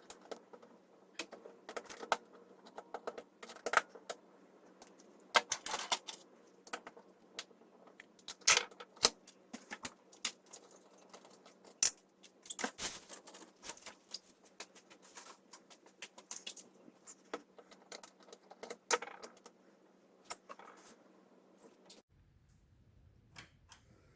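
Irregular clicks and small knocks of a plastic tape measure being handled and pulled apart, over a faint steady hum that cuts out near the end.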